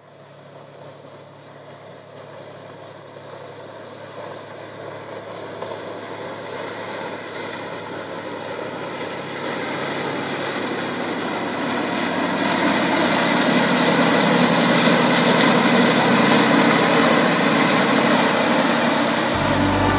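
Raketa hydrofoil running at speed on its foils, its diesel engine and the rush of its wake growing steadily louder as it approaches.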